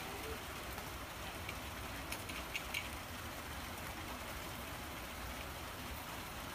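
A cat eating dry kibble from a small dish: a few faint crunching clicks about two to three seconds in, over a steady background hiss.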